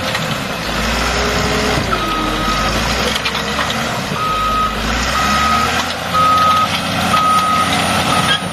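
Reversing alarm on a piece of heavy equipment beeping about once a second, with a pause of roughly two seconds early on, over the machine's running engine.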